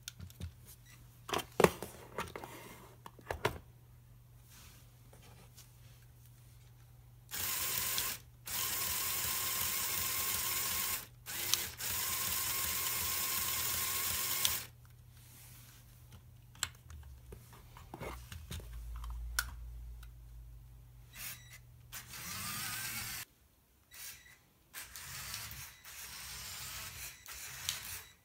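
Plastic gear train of a Lego Technic car model driven by a small battery-powered motor, whirring steadily for about seven seconds with two short breaks. A few sharp clicks of plastic parts being fitted come before it, and quieter whirring runs follow.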